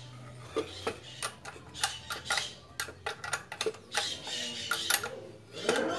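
Irregular metallic clinks and knocks of wrenches and bolts being handled while the machine is tightened, with wooden boards knocking as the frame is moved near the end.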